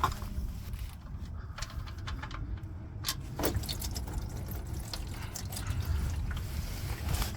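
Engine oil pouring steadily from the open drain-plug hole of a Lexus GX460's oil pan into a catch pan, with a few light clicks.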